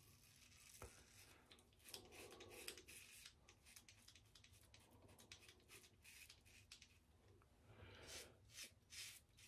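Faint scraping of a multi-blade cartridge razor cutting stubble through shaving lather, in several short strokes.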